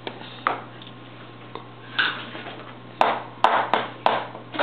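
Utensil tapping and clinking against a dish of food: a few scattered sharp taps, then a quick run of several near the end, over a steady low hum.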